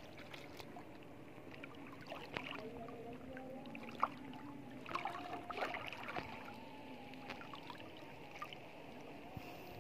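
Feet wading through shallow seawater, with scattered splashes and knocks, the sharpest about four seconds in, over a steady low hum.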